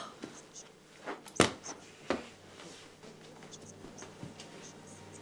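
A few sharp knocks: a small one about a second in, then two louder ones less than a second apart. After them only a faint steady room hum remains.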